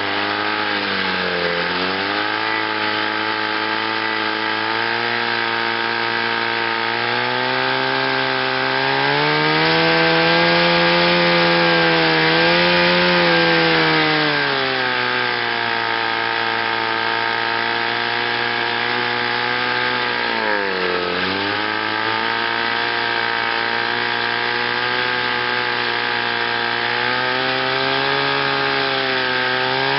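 Chrysler two-stroke outboard motor running in forward gear under load from a test wheel in a water barrel. It is revved up about eight seconds in, held, and eased back around fourteen seconds, then dips briefly near twenty-one seconds and runs steady again. It runs smoothly: the ignition misfire is cured by new condensers and cleaned, adjusted points.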